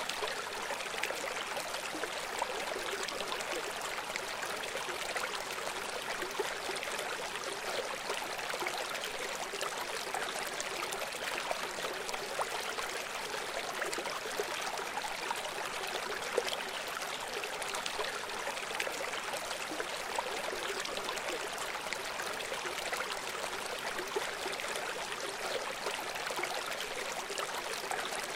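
River water flowing: a steady, even rush that does not change.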